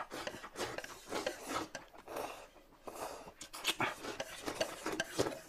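Close-miked eating sounds: wet chewing and mouth noises mixed with many short clicks of utensils against dishes.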